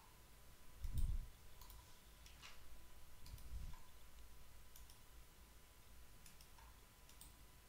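Faint computer mouse clicks, scattered about once a second, with a low soft thump about a second in and another around three and a half seconds in.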